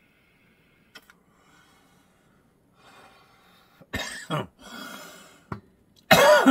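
A man coughing on hashish smoke: a sharp cough about four seconds in, a long breathy exhale, then a louder cough with a falling pitch near the end. A faint click comes about a second in.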